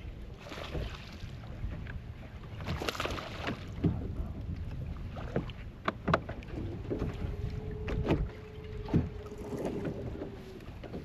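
Wind on the microphone and water slapping against the hull of a bass boat, with repeated short knocks and clicks, and a low steady hum for about four seconds in the second half.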